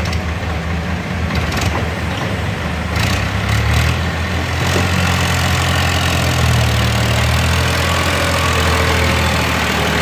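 Diesel engines running steadily: a Powertrac 439 tractor idling close by, with a CAT excavator working as it loads the tractor's trolley. The engine note grows louder and steadier about three seconds in.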